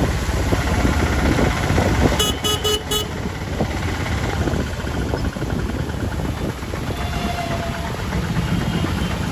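Auto-rickshaw in motion: steady engine and road noise, with a vehicle horn tooting three short times about two seconds in.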